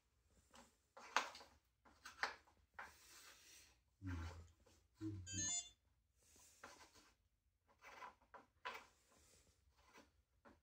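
Faint clicks, knocks and rubbing from an Eskuta KS350 electric scooter's handlebar being worked onto the top of its stem. Two dull thumps come about four and five seconds in, followed by a brief rising squeak.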